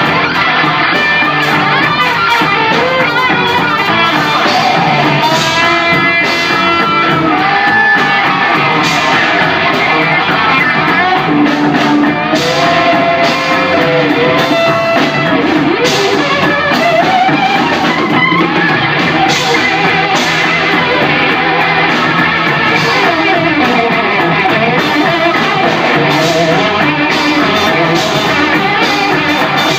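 Rock band playing live, led by an electric guitar solo on a white thinline Telecaster, with notes that bend and glide in pitch.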